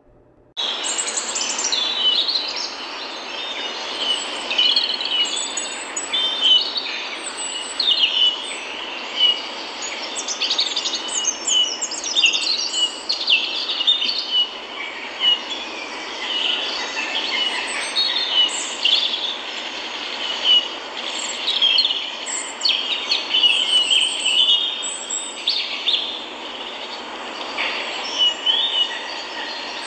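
A chorus of small birds chirping and trilling over a steady hiss, starting abruptly about half a second in.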